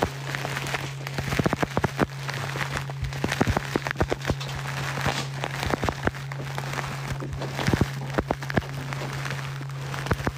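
Irregular sharp clicks and crackles, several a second in places, over a steady low hum.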